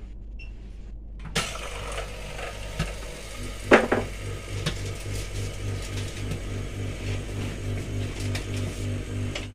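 BST-1 PRO OCA laminating machine starting up after a touchscreen beep: about a second in, its built-in pump starts running with a steady pulsing hum, and there is one sharp click a little before the middle.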